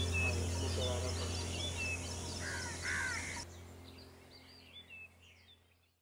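Birds chirping and twittering over a steady low hum, with two louder, harsher calls near the middle; the sound then thins and fades out to silence shortly before the end.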